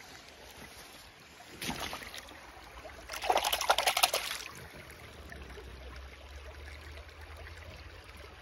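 A hand rinsing in a shallow stream: a short splash about a second and a half in, then a longer, louder flurry of splashing about three seconds in, over the steady trickle of the stream.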